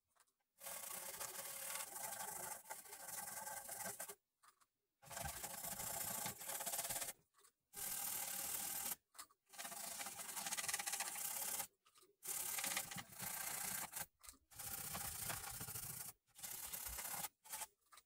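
Dry rubbing and scraping from hands working on an opened LCD television's chassis, likely while corrosion is cleaned off. It comes in stretches of one to four seconds with abrupt dead-silent breaks between them.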